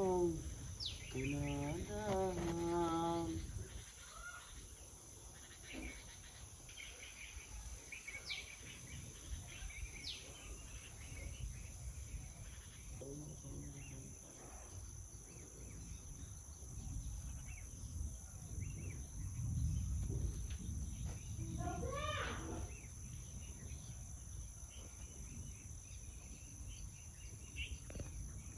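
Steady high-pitched insect drone over a low outdoor rumble. A person's voice is heard briefly in the first few seconds and again about 22 seconds in.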